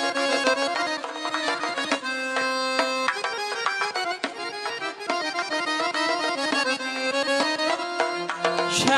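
Instrumental folk-style dance music: a melody of held notes over a steady drum beat, with no singing.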